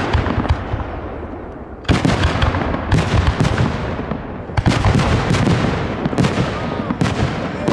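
Aerial firework shells bursting in quick succession: sharp bangs about two, three, four and a half and seven seconds in, each trailing off in a rumble thick with small crackling pops.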